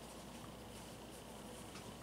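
Montgomery Wards cast iron spinner ceiling fan running at a middle speed on a humming speed controller: a faint steady low hum with a soft rush of moving air and a few light ticks.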